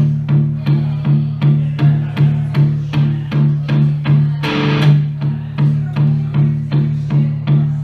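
Live guitar music: a plucked figure repeating evenly at about three notes a second over a steady low pulsing note, with a short noisy swell about halfway through.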